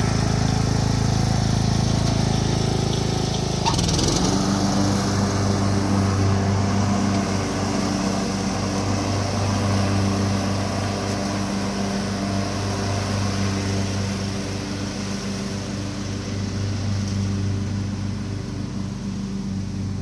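Riding lawn mower's engine running steadily while towing a small load. Its note shifts slightly about four seconds in, then fades gradually as the mower pulls away.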